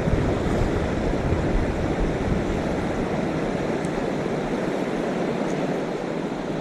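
Steady rushing of river current flowing past, with wind rumbling on the microphone.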